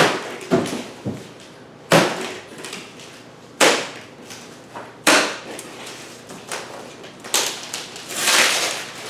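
Cardboard shipping box of a mini-fridge being torn open by hand: a string of sharp ripping and scraping noises, some brief and some drawn out, about eight in all.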